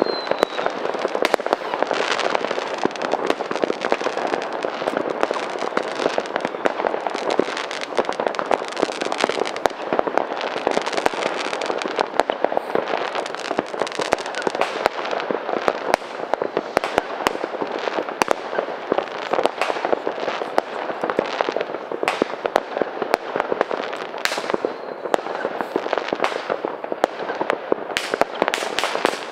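Fireworks and firecrackers going off all around in a dense, unbroken crackle of bangs and pops, with a short falling whistle right at the start.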